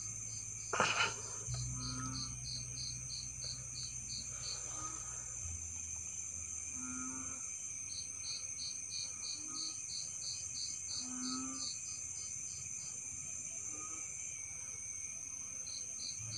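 Night chorus of crickets and other insects: a steady high-pitched trill, with a cricket chirping in runs at about four to five chirps a second. A short low call repeats every couple of seconds, and there is a brief rustle or knock about a second in.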